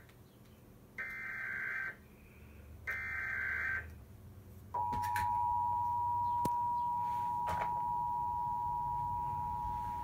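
Emergency Alert System signal playing from a television's speaker. First come the last two bursts of the SAME data header, each about a second long and a second apart. About five seconds in, the EAS two-tone attention signal starts: a steady dual tone at 853 and 960 Hz that holds on. It announces a Required Monthly Test of the alert system.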